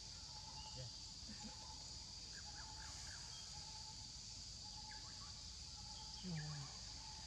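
Quiet outdoor ambience: a steady, high-pitched insect drone with a short note repeating about once a second, and a faint voice briefly near the end.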